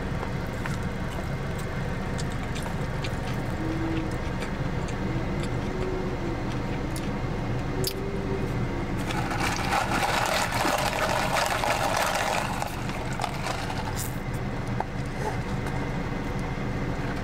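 Close-up eating sounds: chewing noodles, with a few short hummed "mm"s, then several seconds of loud slurping starting about nine seconds in. A steady low rumble of the car cabin lies underneath throughout.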